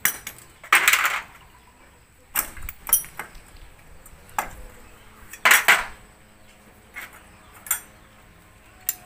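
Metal hand tools, wrenches and sockets, clinking and clattering against each other and against metal scooter parts in a string of separate knocks about a second apart, two of them longer rattling clatters.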